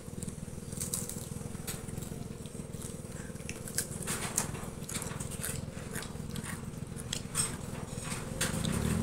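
Children chewing and eating with forks: scattered sharp clicks and smacks over a steady low hum.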